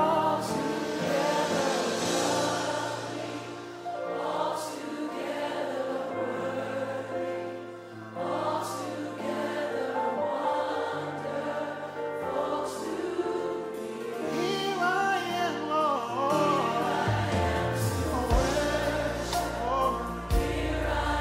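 A worship team and congregation singing a slow worship song together, with keyboard accompaniment. A low rumble joins near the end.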